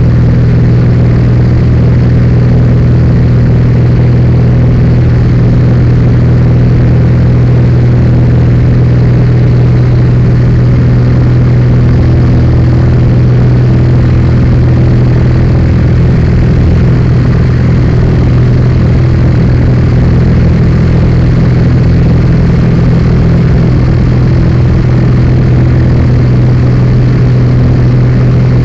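Zlin Z 42's inverted six-cylinder Avia engine and propeller running steadily at cruise power, heard from inside the cockpit as a loud, even drone with a strong low hum.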